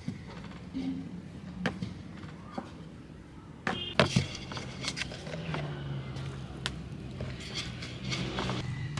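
Wooden rolling pin rolling out dough on a wooden board, with a few sharp knocks of the pin against the wood, the loudest a pair about four seconds in.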